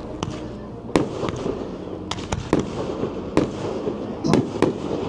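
Fireworks display: about ten sharp bangs of shells bursting at uneven intervals, two or three close together, over a steady crackle and hiss.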